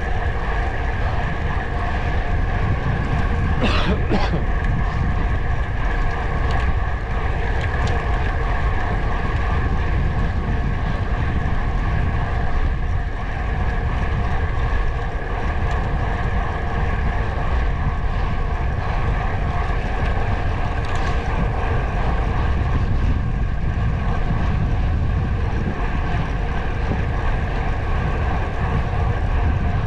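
Wind buffeting the microphone on a moving vehicle, a heavy low rumble over a steady droning hum. A brief sharp noise comes about four seconds in and another about twenty-one seconds in.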